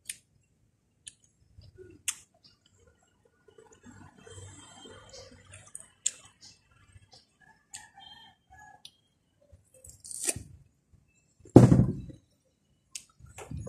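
A person chewing and eating mango close to the microphone: scattered soft wet mouth clicks and smacks, with one louder thud near the end.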